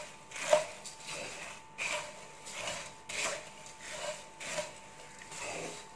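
Wooden spatula stirring and scraping beaten rice flakes (aval) around a wok as they roast, a dry rustling rasp with each stroke, about one and a half strokes a second.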